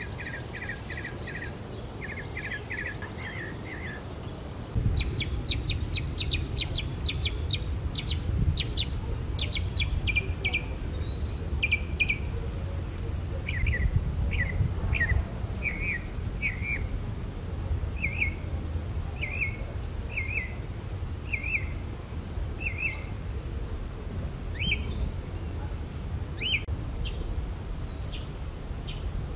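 Songbirds singing: a rapid trill of short repeated notes, then a fast run of higher notes that slows into single slurred chirps about once a second. A low background rumble comes in about five seconds in.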